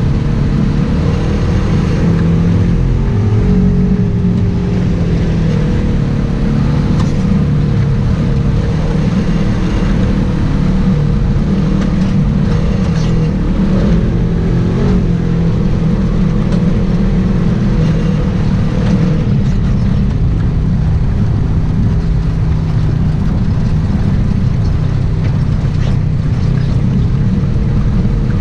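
Off-road vehicle's engine running steadily under load, a continuous low rumble with a steady hum, heard through a hood-mounted camera.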